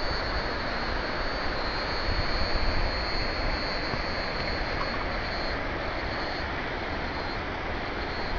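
Wind buffeting the microphone as a steady rumbling roar, with a thin, steady high buzz over it that thins out and breaks up about five seconds in.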